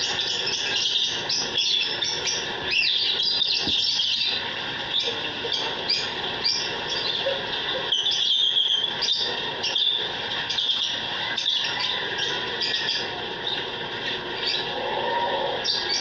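A flock of caged African lovebirds chirping, with many short, high-pitched chirps and calls overlapping continuously.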